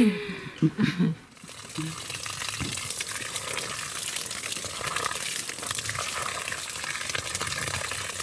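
Women's voices for about the first second, then steady sloshing and splashing of clothes being scrubbed by hand in a plastic cooler full of soapy water.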